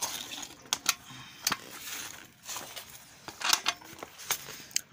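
TVS Jupiter scooter's kick-start lever clinking and knocking several times as it is moved and drops loose against the engine casing. The lever won't stay up because its return spring has broken.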